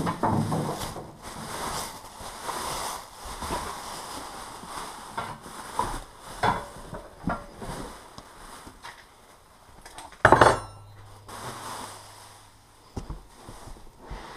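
Clear plastic wrapping crinkling and a cardboard box rustling as a packed air compressor is pulled out, with scattered clinks and knocks of handling and one loud knock about ten seconds in.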